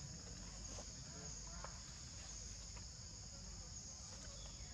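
Steady chorus of insects, a high shrill drone, with a few faint short chirps over it.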